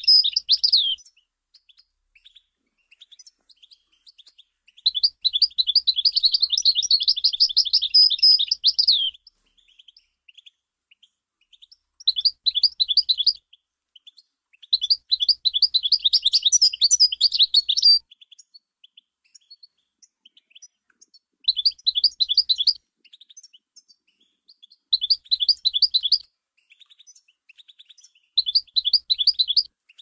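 European goldfinch singing: about seven phrases of rapid, high-pitched twittering, each one to four seconds long, separated by short pauses.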